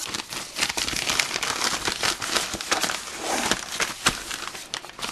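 Plastic bags and wrappers crinkling and crackling as a hand rummages through them in a cardboard box, a dense run of quick crackles.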